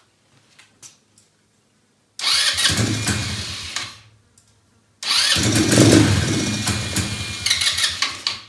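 Elstar 150cc quad bike engine, started twice: each time it catches suddenly, runs for a couple of seconds and fades out as it dies, the second run longer than the first. The owner thinks it might be out of fuel.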